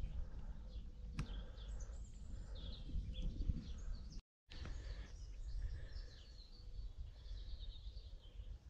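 Songbirds chirping and singing, many short calls over a low rumble. The sound drops out for a moment about four seconds in.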